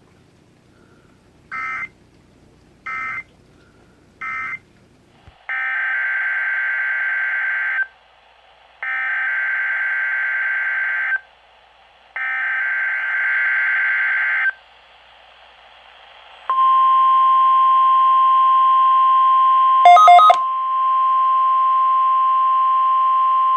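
NOAA Weather Radio alert signals: three short bursts of SAME data tones marking the end of the previous message, then three longer bursts of the SAME digital header warbling between two pitches. About 16 seconds in comes the steady 1050 Hz warning alarm tone, under test, broken briefly by a flurry of clicks near the 20-second mark.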